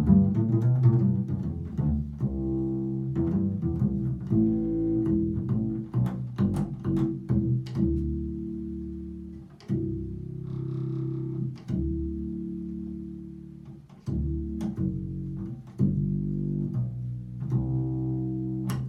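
Czechoslovakian five-string acoustic double bass, tuned BEADG with a low B, played solo: plucked notes in a slow melodic line, some left to ring for a second or two.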